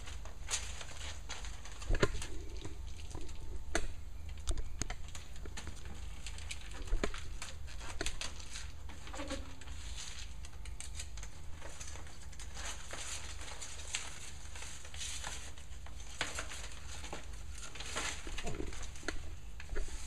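Scattered light taps, knocks and crinkling from handling foil bubble-wrap insulation, over a steady low hum.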